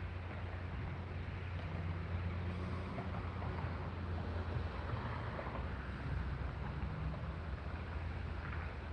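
Steady wind blowing across the microphone, a continuous low rumble with a faint rustle of wind in the trees, ahead of an approaching thunderstorm.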